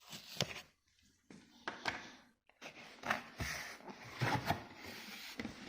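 Cardboard packaging being cut open and handled, with scraping, rustling and sharp knocks in irregular bursts.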